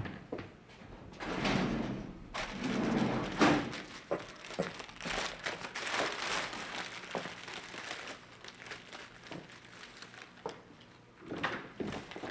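Brown paper lunch bag and sandwich wrapping paper crinkling and rustling as the bag is opened and a sandwich unwrapped, in irregular bursts, with a few dull knocks among them.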